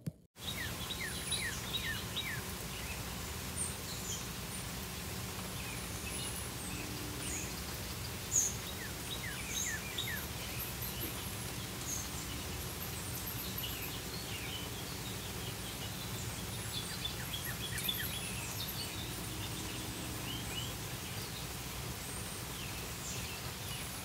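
Wild birds chirping and calling in the trees, many short quick notes, some sliding down in pitch, scattered throughout over a steady low outdoor background noise.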